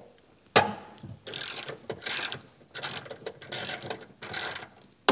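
Ratchet wrench with a 15 mm socket on extensions, backing out the rear top bolt of an air strut: a sharp click about half a second in, then five quick strokes, each a burst of rapid pawl clicking. The bolt has broken loose and turns out easily.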